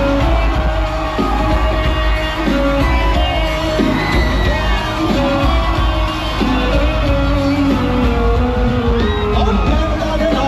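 Live Punjabi pop concert music played through arena speakers: a sung melody of long held notes over loud, heavy bass, with the crowd yelling.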